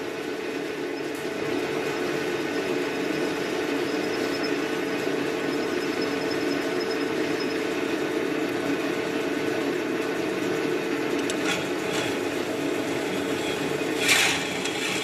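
Metal lathe running steadily at about 700 rpm while a twist drill bores into a phosphor bronze bar with water coolant on. There is a short scraping noise near the end.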